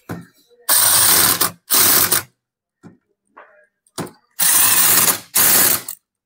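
A pneumatic wrench driving gearbox housing bolts in four short bursts, two near the start and two in the second half, each a loud mechanical rattle lasting about half a second to a second.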